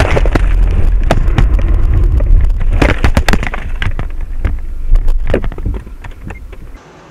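A car collision heard from the dashcam inside the car: a heavy low rumble with repeated clattering knocks and bangs as the camera is knocked loose. It cuts off sharply near the end.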